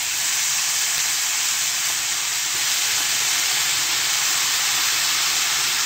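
Egg fried rice sizzling in a hot frying pan as soy sauce cooks off on it: a steady, even hiss of frying and steam.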